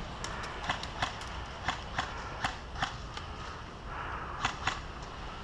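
Scattered airsoft gunfire: about a dozen sharp clicks at irregular intervals, over a faint rustle.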